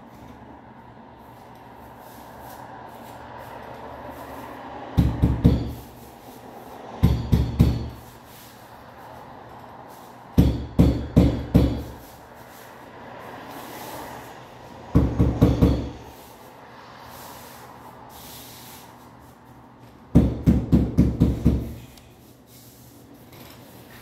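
Floor tile being tapped down into place: five short bursts of quick, dull knocks, four to six knocks in each burst, spread a few seconds apart.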